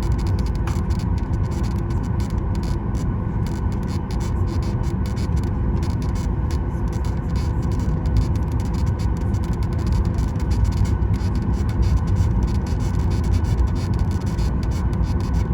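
Steady cabin noise inside a Boeing 737 MAX 9 as it taxis: a low rumble with a faint steady whine from its CFM LEAP-1B engines at idle.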